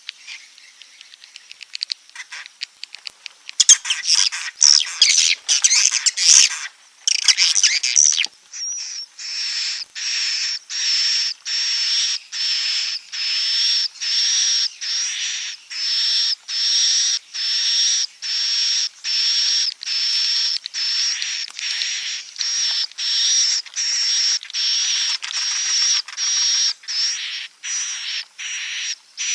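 Swiftlet 'inap' roosting calls, the recorded lure sound played in swiftlet houses. A few faint chirps give way to a burst of dense twittering from about four to eight seconds in. Then comes a steady series of buzzy chirps, repeated about once every three-quarters of a second.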